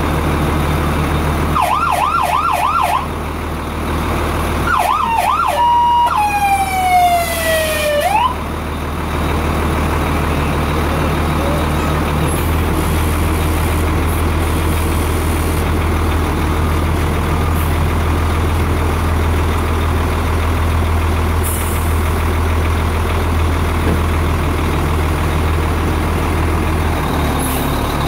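Fire truck siren sounding in short bursts: a fast warbling yelp twice, then a long tone that slides down and jumps back up, cutting off about eight seconds in. Under and after it the truck's engine idles with a steady low hum.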